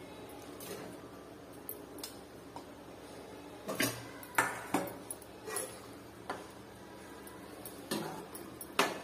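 Boiled potatoes tipped from a steel bowl into a metal pan of chickpea gravy, then a ladle stirring them in. The ladle knocks and clinks against the pan several times in the second half, the loudest strike near the end.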